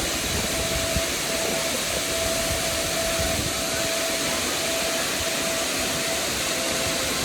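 Steady rushing roar of a waterfall, with a faint thin tone that comes and goes.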